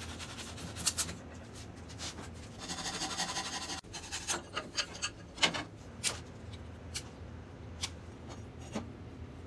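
Small hand saw cutting a thin wooden branch held in a vise: a quick run of short rasping strokes about two and a half seconds in, then scattered clicks and knocks as the saw and the cut wood are handled.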